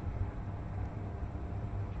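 Steady low background rumble with no distinct event.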